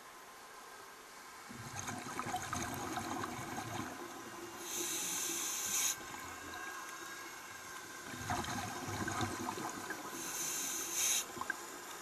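Scuba diver breathing through a regulator underwater: two breaths, each a bubbling rush of exhaled air followed by a sharp hiss as the next breath is drawn.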